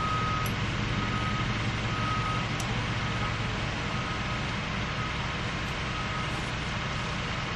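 Engine of a heavy work machine running steadily, with a reversing alarm beeping about once a second.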